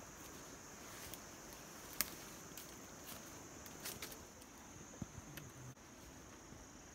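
Insects droning steadily at a high pitch, with a few sharp clicks, the loudest about two seconds in and others near four and five seconds.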